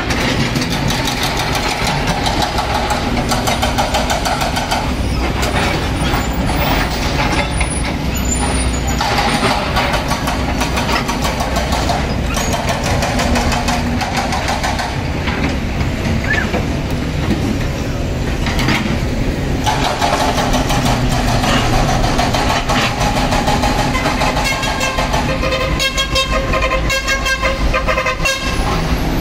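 Heavy diesel trucks and earth-moving machinery running steadily, with a vehicle horn tooting repeatedly near the end.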